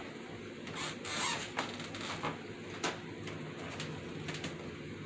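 Gloved hands handling foam craft pieces: a brief rustle about a second in and a few small clicks, over a low steady hum.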